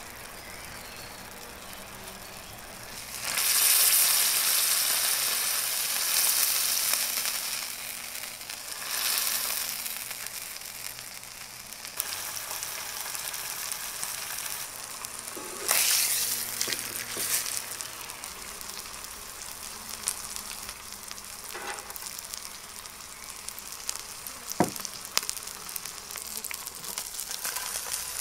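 Ribeye steak frying on low heat in a cast-iron pan, a sizzle that swells and eases in waves, loudest from about three seconds in. A few clicks and one sharp knock sound near the end.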